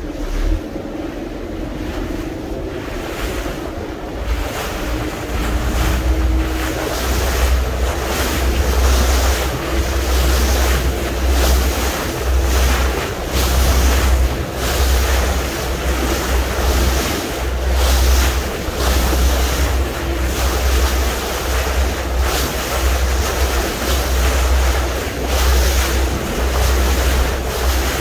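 Wind buffeting the microphone in heavy gusts over the steady rush of sea water around a boat under way, the gusting growing stronger about five seconds in.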